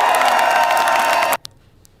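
A crowd of supporters cheering and shouting, a dense mass of many voices that cuts off suddenly about two-thirds of the way through, leaving a much quieter gap broken by a couple of sharp clicks.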